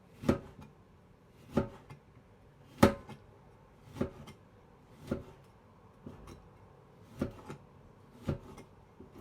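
Knife slicing a lemon into thin slices: about eight evenly spaced strokes, roughly one a second.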